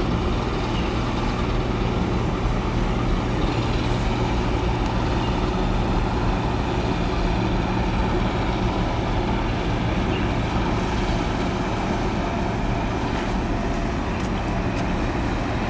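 Steady low drone of heavy marine diesel engines, from the tugboat working alongside the container ship, with a constant rumble and no break.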